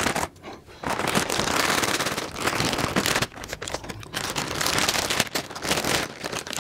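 Plastic-foil snack packets crinkling and rustling as faces are pushed into them and the packets are pressed against a table. The crackling is dense and busy, with a few short pauses.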